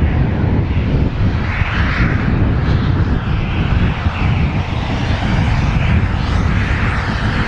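Steam tank locomotive hauling passenger coaches past under steam: a loud, steady rumble with a rush of exhaust that swells now and then.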